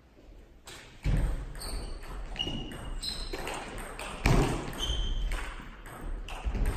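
Table tennis ball bouncing and clicking, a string of short high pings, with a few dull thuds among them, echoing in a large sports hall.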